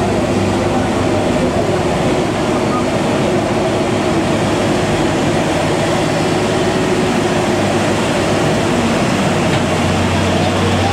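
Diesel engine of a loaded Hino 500 dump truck pulling steadily up a steep hairpin climb, a loud even engine note over road noise.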